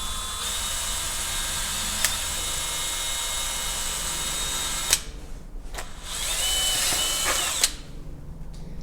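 Power drill boring small holes: a steady whine for about five seconds that cuts off sharply, then a second, shorter run that spins up in pitch and holds before stopping.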